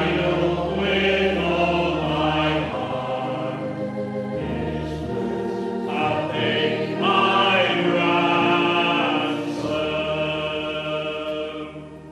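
Congregation singing a hymn together with a steady instrumental accompaniment underneath, held notes changing every second or two, fading out near the end as the hymn finishes.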